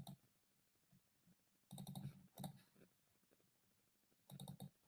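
Faint clicking from working a computer, in two short runs, about two seconds in and again near the end, against near silence.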